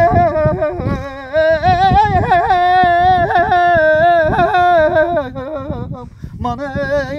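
A man singing unaccompanied in Azerbaijani folk style: a long, wordless line held on open vowels, full of quick trills and wavering ornaments. He breaks off briefly about six seconds in, then starts again.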